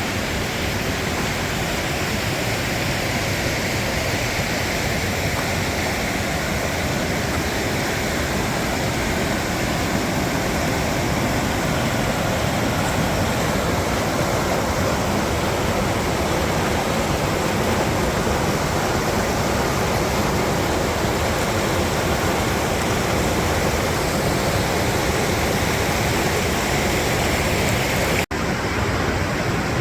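Waterfall swollen with spring rain and snowmelt: a loud, steady rush of falling water, briefly broken near the end.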